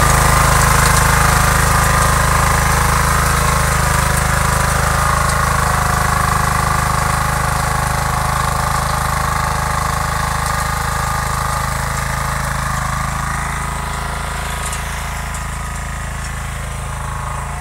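Small walk-behind power tiller (mini rotary cultivator) engine running steadily under load while its tines churn the soil, getting gradually fainter as it moves away.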